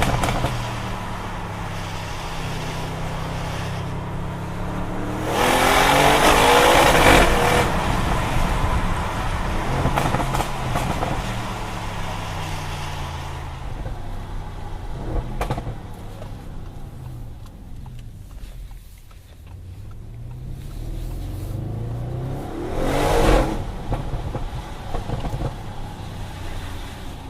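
Audi RS6 Performance's twin-turbo V8 under hard acceleration: it revs up loudly about five seconds in, winds down through a long stretch of coasting, and pulls hard again briefly near the end. A few sharp exhaust cracks come while it slows.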